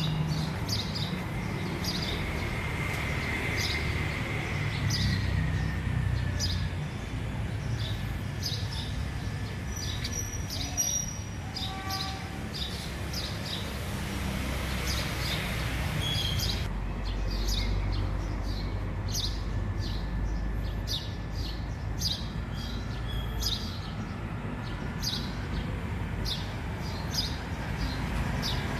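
Small birds chirping repeatedly in short, high chirps, about one or two a second, over a steady low rumble.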